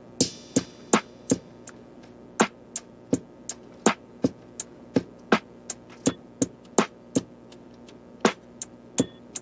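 Background music beginning with a beat of sharp percussive clicks, roughly three a second, over a faint steady hum.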